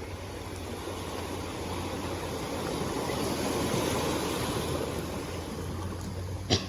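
Sea waves washing, swelling and easing, with a steady low hum underneath and one sharp click near the end.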